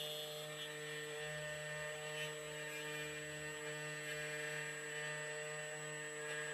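CNC key cutting machine's spindle motor running steadily with a constant hum and whine while milling a Ford HU198T key blank.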